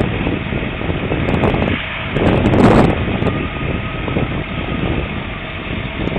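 Fire engines' engines running, a steady loud rumble, with wind buffeting the phone's microphone in swells, the strongest about two and a half seconds in.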